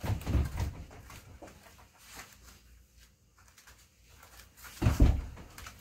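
Dull thuds of punches landing on a freestanding striking dummy: a quick cluster at the start, then two heavy hits near the end.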